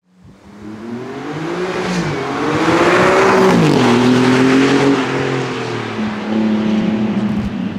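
Alfa Romeo Giulia GTA M's twin-turbo V6 through its Akrapovič titanium exhaust, accelerating hard past on the road: the engine note grows louder and rises in pitch as the car approaches, drops sharply about three and a half seconds in as it goes by, then carries on, rising again as it pulls away.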